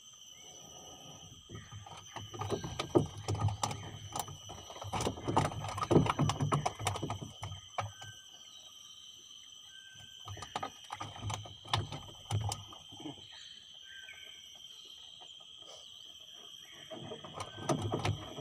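Steady high-pitched insect drone from the mangroves, under scattered knocks, thuds and rustles of fishing line and gear being handled in a wooden boat. A few short whistles come through in the quieter second half.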